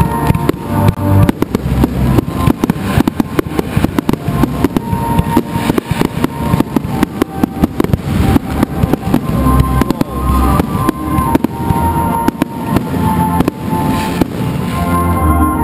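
Aerial fireworks display going off continuously, many sharp bangs in quick succession with no pause, while music plays along with them.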